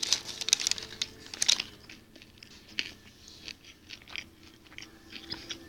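A person chewing a mouthful of sandwich close to the microphone: a run of quick wet mouth clicks, dense and loudest in the first second and a half, then sparser and quieter.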